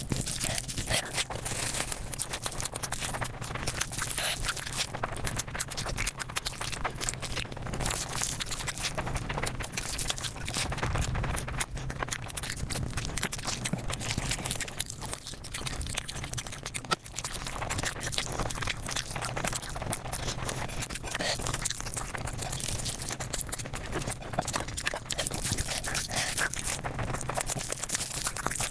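Mukbang eating sounds sped up five times: a dense, unbroken run of fast chewing and crunching clicks with crinkling and rustling, over a steady low hum.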